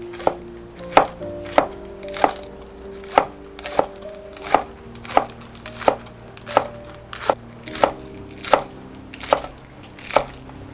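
Kitchen knife chopping green onions into rounds on a wooden cutting board: about fifteen sharp, evenly spaced chops, roughly three every two seconds.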